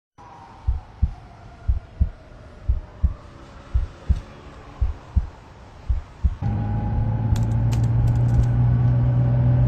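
Slow heartbeat, a double thump about once a second, with a faint falling tone under it. About six and a half seconds in it gives way to the steady low hum of a moving car's cabin.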